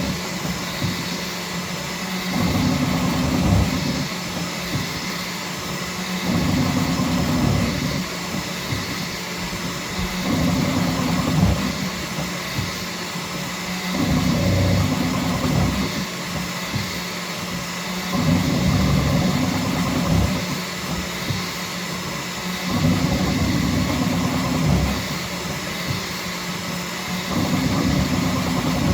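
Bambu Lab X1C 3D printer printing at full speed: a steady whir of its cooling fans with the stepper motors humming underneath, the hum swelling louder for a second or two about every four seconds as the print head moves.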